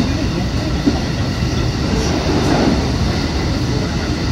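JR West 221 series electric train running, heard from inside at the front: a steady rumble of wheels on rail with some faint clatter.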